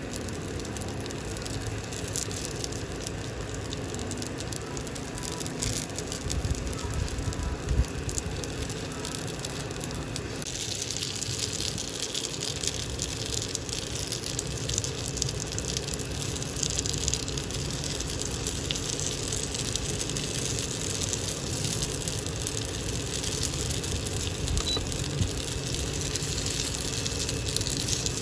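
Dumplings pan-frying in oil in a nonstick pan: a steady sizzle that grows louder and brighter about ten seconds in, as their bottoms brown.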